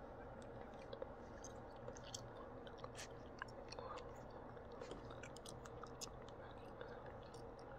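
Faint small wet clicks and smacks of newborn Corgi puppies mouthing and suckling at a person's fingers, scattered irregularly over a steady low hum.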